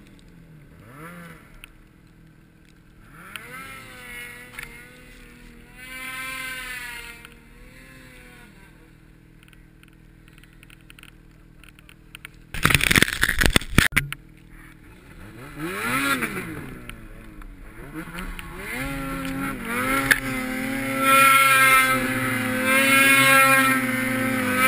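Snowmobile engines revving, the pitch rising and falling several times as the sleds climb and turn in deep snow, with a short loud rush of noise about halfway through. From about three quarters of the way in an engine runs hard and steady at high revs, the loudest part.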